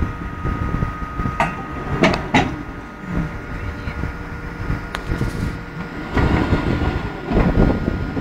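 Large crawler mining shovel's machinery running, its tracks and steelwork clanking and grinding over a low rumble, with several sharp metal knocks and a thin steady whine.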